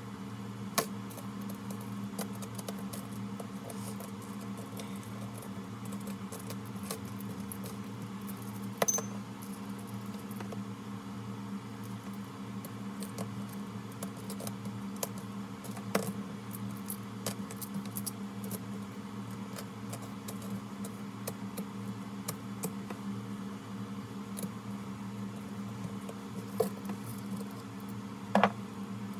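A steady low electrical hum with a few scattered, sharp light clicks.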